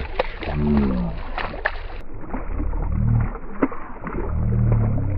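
A hooked trout thrashing and splashing at the water's surface while being played in, with a person's low, drawn-out exclamations over it.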